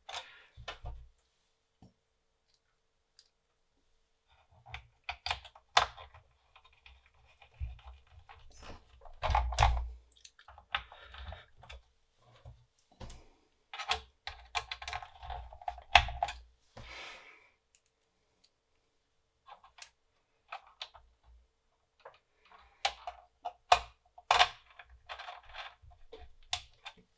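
Irregular clicks, knocks and short scrapes of the metal floppy-drive case being handled and fitted back together on the bench, with quiet gaps between.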